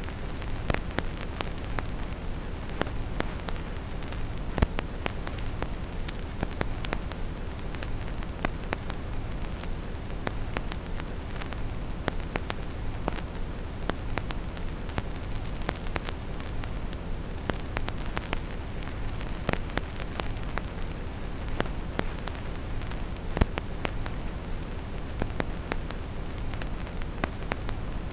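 Vinyl record crackle: irregular clicks and pops over a steady, low brown-noise rumble. Two louder pops stand out, one about four and a half seconds in and one about twenty-three seconds in.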